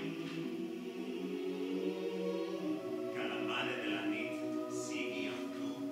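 Choir singing slow, long-held chords.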